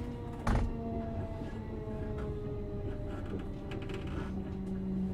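Inside a Renatus Class 321 electric multiple unit on the move: steady running rumble under an electric whine of several tones that slowly sink in pitch. A single loud knock comes about half a second in.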